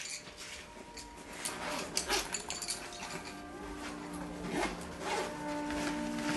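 Rustling and zipper scrapes of a fabric bag being opened and rummaged through, over quiet music with held notes that grows louder near the end.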